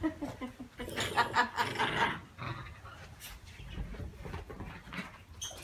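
Pet dogs making short vocal sounds, loudest between about one and two seconds in, over low handling noise from the moving phone.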